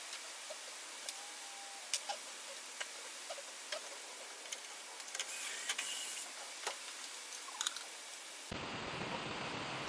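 Scattered light metal clicks and clinks of a hand socket tool working on a truck cab's door-hinge bolts, irregular and sparse over faint hiss. Near the end the sound cuts abruptly to a steady rushing hiss.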